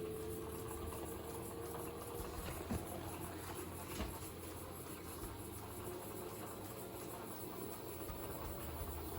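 Panasonic drum-type washing machine with its drum turning: a steady low hum and a faint motor whine that rises slowly over the first couple of seconds, under a gritty creaking ('giri-giri'), with two short knocks about three and four seconds in. The uploader explains this creaking as the sign of a stretched drive belt between drum and motor that will soon slip off and trigger an H35 error.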